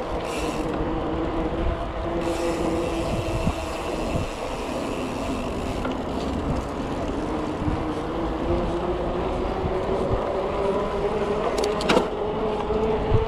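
Mountain bike rolling fast on asphalt: a steady whirring hum from the wheels that slowly rises in pitch as the bike picks up speed, over low rumble from wind on the microphone. A sharp click sounds near the end.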